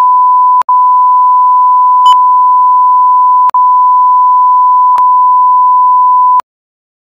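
A censor bleep: one loud, steady, high beep tone at a single pitch laid over the crowd audio in an edit. It breaks off for an instant three times and carries a small click about two seconds in, then cuts off abruptly shortly before the end.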